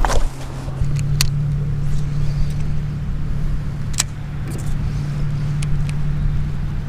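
A steady low motor hum that settles in about a second in, with a few sharp clicks over it.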